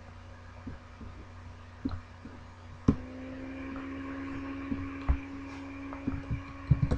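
Scattered clicks and taps from a computer mouse and keyboard over a low electrical hum; about three seconds in, a steady humming tone starts and keeps going.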